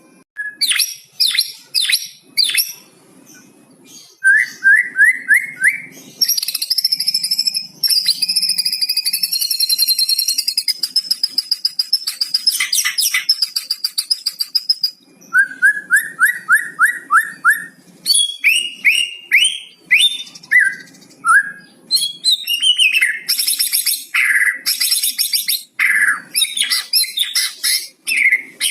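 White-rumped shama (murai batu) singing a long, varied song that works in phrases learned from the cucak cungkok. It goes through runs of five to eight quick rising notes, a sustained high trill, downward-sweeping whistles and loud high chattering phrases.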